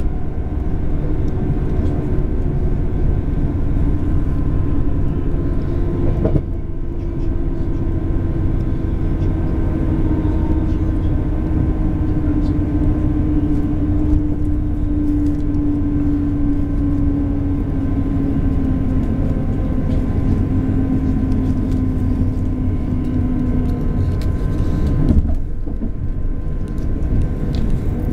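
A passenger train running at speed, heard from inside the carriage: a steady rumble of wheels on rails with a drone that slowly falls in pitch, and a brief dip in the noise twice.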